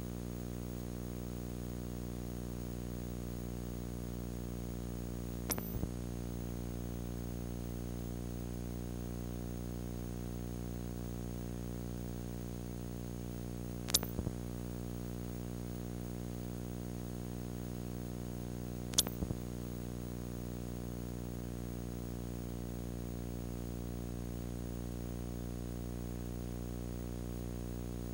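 Steady electrical hum with a buzzy row of overtones and a faint hiss, broken by three brief clicks spread several seconds apart.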